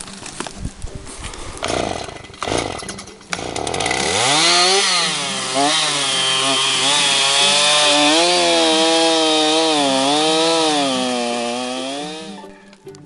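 A few knocks and clatters, then a chainsaw engine starts up about three and a half seconds in and revs up. It runs at high speed for about eight seconds, its pitch dipping and wavering as it works in a cut, then dies away near the end.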